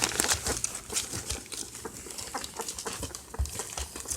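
Newborn puppies, about ten days old, whimpering and squeaking, with many small rustling and scratching clicks as they move about.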